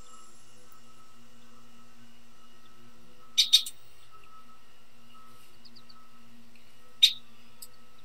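Female red-winged blackbird chirping: a quick pair of brief calls about halfway through and a single call near the end, over a faint steady hum.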